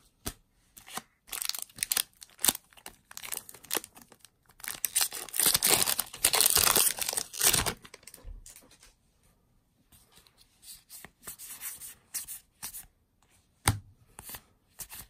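A foil booster pack wrapper being torn open and crinkled for several seconds, the loudest sound. Before and after it come light clicks and slides of trading cards handled in the fingers, with one sharper card snap near the end.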